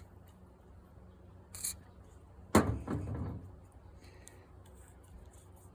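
Quiet hand work on a drill press chuck: a light click about a second and a half in, then one sharp knock about two and a half seconds in, with a short rattle after it.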